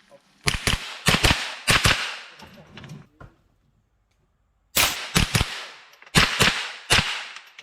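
Rapid gunshots from a competition rifle or pistol, fired mostly in quick pairs, each with a short echo, and a pause of about a second and a half partway through.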